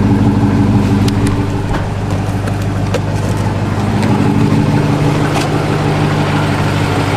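Car engine with an aftermarket camshaft idling with a choppy, lumpy idle.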